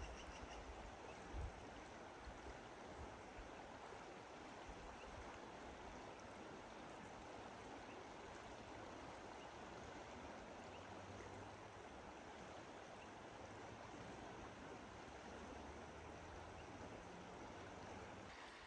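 Lower Deschutes River rushing: a faint, steady wash of moving water, with a single low thump about a second and a half in.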